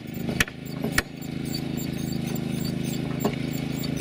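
Hand-cranked, chain-driven manual rail drilling machine boring through a steel rail: sharp knocks about twice a second, then from about a second in a steady low churn of the drill bit cutting.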